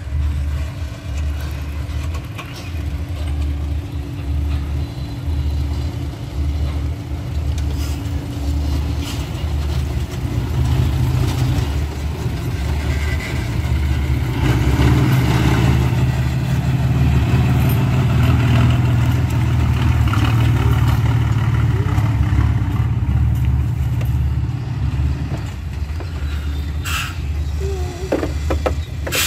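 Loaded dump truck's diesel engine running with a low, pulsing rumble as the truck drives slowly across a dirt site. It grows louder as the truck passes closest about halfway through, then eases off as the truck moves away.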